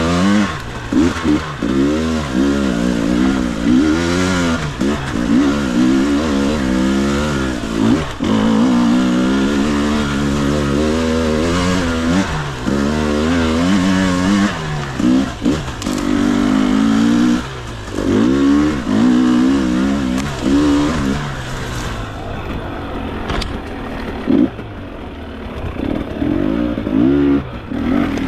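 Enduro motorcycle engine under the rider's throttle on a twisty trail, the revs repeatedly climbing and dropping back. About three-quarters of the way through it runs quieter at low revs for a couple of seconds, then revs up in short bursts again.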